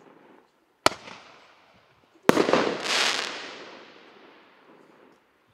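Roman candle firing its 1.2-inch shots: a sharp pop about a second in, then a louder bang about two seconds in followed by a noisy rush that dies away over the next two seconds.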